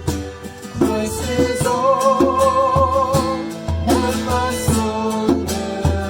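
A worship song performed by a band with a steady beat, guitar and drums, and a long wavering held note near the middle.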